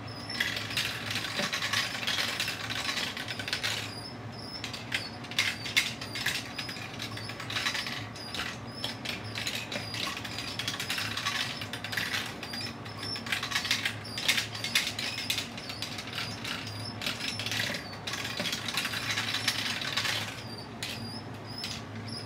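Toy marble run in motion: glass marbles clacking and rattling through plastic tracks, tubes and drops in a constant irregular patter of clicks, over the steady hum of its lift motor.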